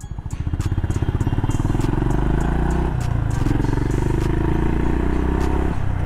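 Honda CB350RS's single-cylinder engine pulling away, its revs climbing from a low pulsing beat. The revs drop briefly about three seconds in as it shifts up, climb again, and drop once more near the end.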